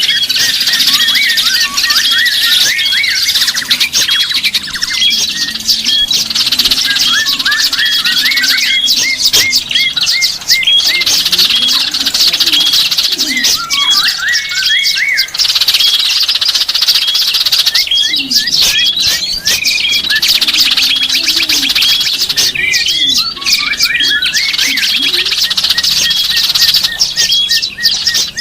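A dense chorus of many small songbirds chirping and trilling together, played as a bird-lure (pikat) recording. One short hooked note repeats at a steady pace above a continuous high twitter, with lower calls breaking in now and then.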